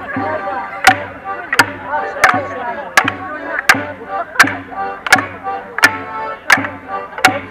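Border morris dancers' wooden sticks clashing together in a regular beat, about three sharp clacks every two seconds from about a second in, over the band's dance music.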